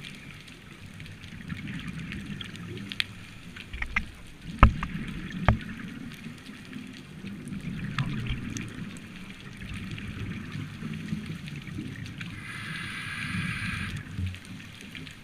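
Underwater sound picked up through a camera's waterproof housing: a steady low rumble of water with gurgling bubbles from a scuba diver's breathing. Two sharp knocks come about four and a half and five and a half seconds in, and a hiss lasting about a second and a half comes near the end.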